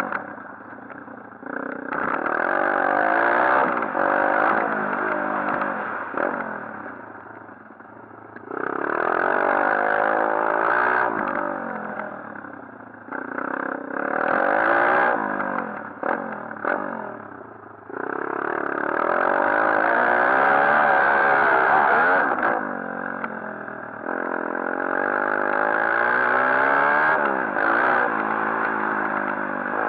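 A 140cc pit bike's single-cylinder four-stroke engine being ridden hard: repeated bursts of throttle with the pitch climbing and dropping as it shifts, easing off between bursts.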